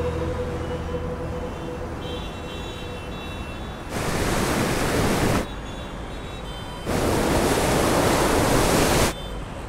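Loud rushing noise in two stretches, the first about a second and a half long and the second about two seconds, each starting and stopping abruptly, after faint music tones die away.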